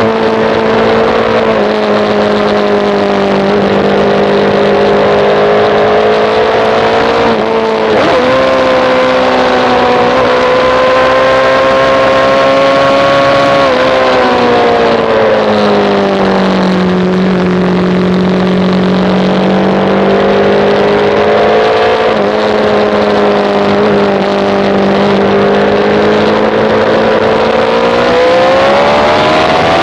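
Sportbike engine at track speed heard from on the bike, over a steady rush of wind. The engine note jumps sharply about 8 seconds in, falls to a low, steady pitch in the middle and climbs again near the end as the rider accelerates.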